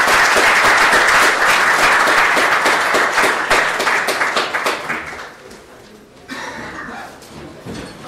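Audience applauding, many hands clapping. It dies away about five to six seconds in.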